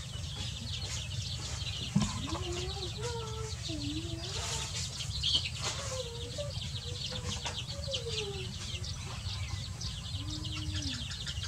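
A hen and her chicks calling as they forage: the chicks keep up a rapid, high cheeping chatter while the hen gives soft, low, wavering calls every second or so, over a steady low background rumble. A sharp click sounds about two seconds in.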